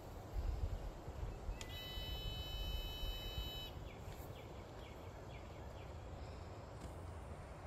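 Faint outdoor background with a low rumble. A steady high-pitched tone sounds for about two seconds, starting and stopping abruptly, followed by a quick run of short chirps.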